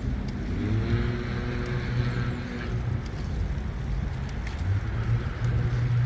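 Riding noise from a moving bicycle: wind on the microphone and a rolling rumble, with a steady low motor hum from vehicles, joined by a slightly rising tone about half a second in.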